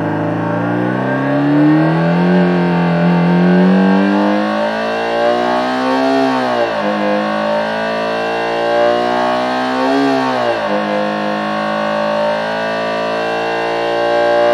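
Homemade optical engine-sound synthesizer imitating a Subaru EJ20 flat-four with equal-length exhaust, revved up to high rpm. The pitch climbs and then drops sharply twice, about six and a half and about eleven seconds in, like upshifts, and then holds high.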